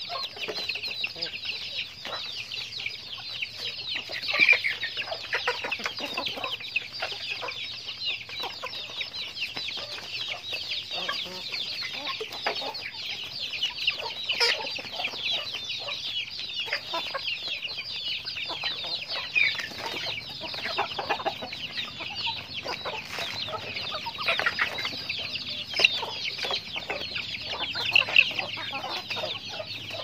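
A flock of chickens calling as they forage: a dense, continuous chorus of short high-pitched cheeping, with a few louder calls standing out.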